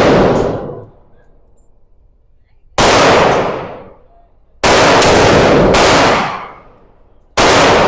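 Five gunshots: one about three seconds in, a quick group of three around five seconds in, and one more near the end. Each sharp report is followed by about a second of echo. The echo of a shot fired just before also dies away at the start.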